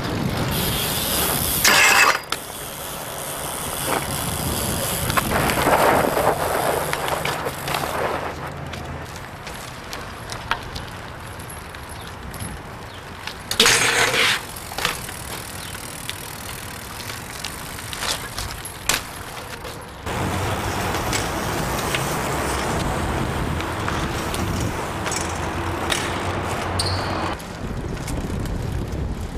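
BMX bikes ridden on street concrete: tyres rolling, with sudden loud hits and clanks from landings and drops, over steady outdoor street noise.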